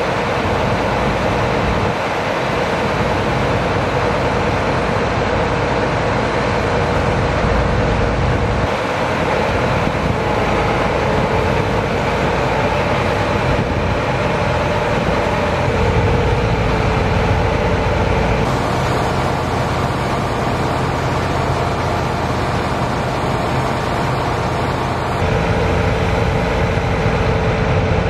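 John Deere tractors running while a Brent 1082 grain cart's auger unloads wheat into grain wagons: a steady machinery drone. The sound shifts about 18 seconds in and again near 25 seconds.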